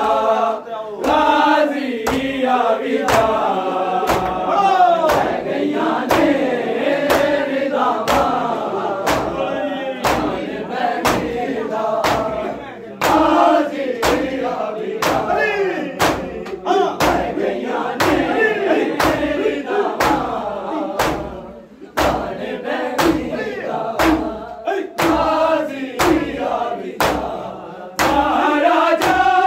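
A crowd of men chanting a nauha (Muharram lament) in unison while beating their bare chests with open hands in matam. The slaps land together about three times every two seconds, keeping the beat of the chant.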